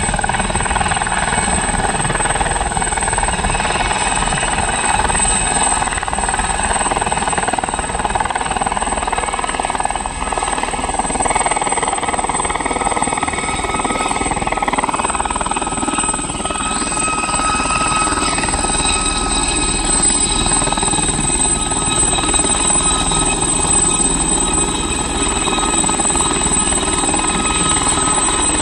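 Aérospatiale SA 341F Gazelle helicopter hovering low and drawing closer: a steady high turbine whine over the rotor noise. Higher whining tones grow louder past the middle as it nears.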